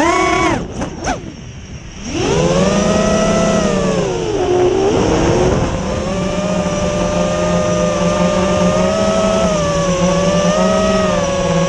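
FPV drone's electric motors and propellers whining, the pitch following the throttle. The whine rises briefly, nearly cuts out for about a second and a half, comes back, dips once more around five seconds in, then holds steady.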